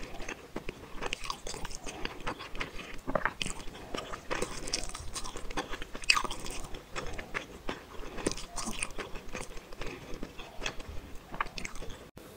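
Close-miked mouth sounds of someone chewing tteokbokki rice cakes and fish balls: many short, irregular smacks and clicks in quick succession.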